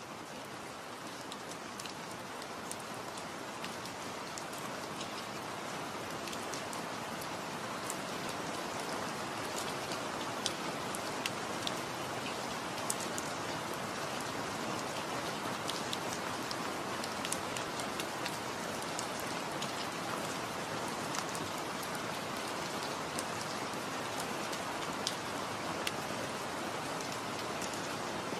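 Steady rain with many small drop ticks, growing a little louder over the first several seconds.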